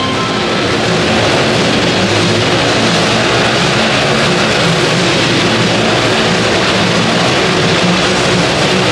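Motorcycles riding inside a steel-mesh globe of death, their engines running hard with a continuously wavering pitch.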